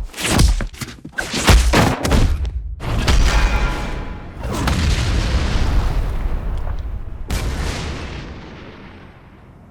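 Fight sound effects: several sharp hits in quick succession, then a heavy boom about four and a half seconds in that dies away in a long rumble, with a second swell near seven seconds. Music plays underneath.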